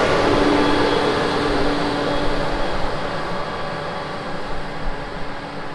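Versatile 210 Nemesis tractor's diesel engine running as the tractor drives away, its steady hum slowly fading.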